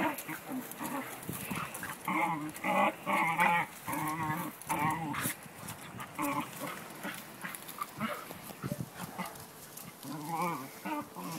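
A dog whining, a series of short, wavering cries between about one and five seconds in and again near the end.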